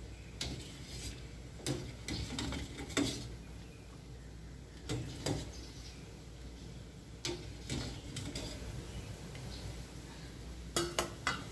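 A ladle stirring thick turmeric-tamarind jamu in a stainless steel saucepan, knocking and scraping against the pot every second or two, with a quick run of clinks near the end.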